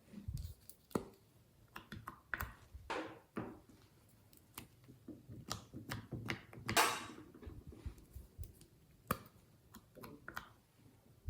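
Glossy slime being squished and kneaded by hand: irregular sticky clicks, pops and short squelching crackles, with one longer squish about two-thirds of the way through.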